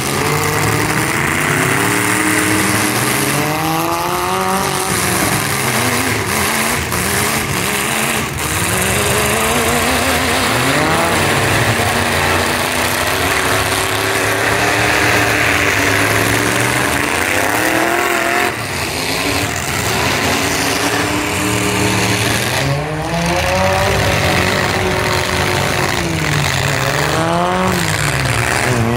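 Demolition derby cars' engines revving hard, rising and falling over and over as the wrecks push and ram each other in the mud, with a few sharp knocks of metal hits.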